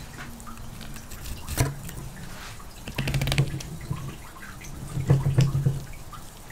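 Wet clicks and squelches of a California sheephead being filleted and handled with a knife on a wet cutting board, in three short spells.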